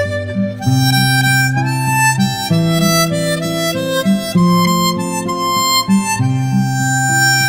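Instrumental background music: sustained chords under a melody that moves to a new note every half second or so.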